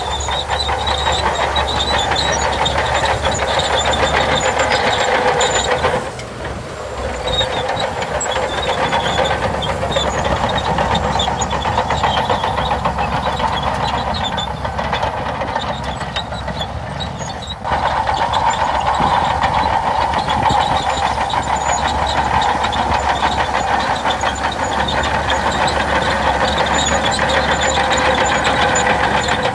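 Shantui DH17C2 crawler bulldozer working, its engine running under load with a steady metallic track rattle. The sound drops briefly about six seconds in and again at about eighteen seconds.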